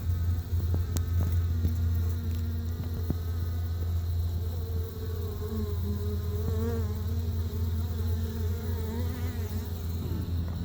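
Many bees buzzing around their exposed nest: a steady low drone, with the wavering buzz of single bees rising and falling in pitch as they fly close.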